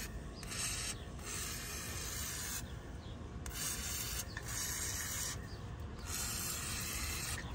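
Aerosol can of penetrating oil spraying through its straw in about five short hissing bursts, each one to one and a half seconds long, with brief pauses between.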